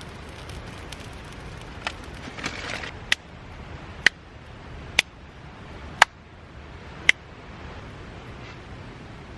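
Five sharp, ringing knocks about a second apart, after a short rustle.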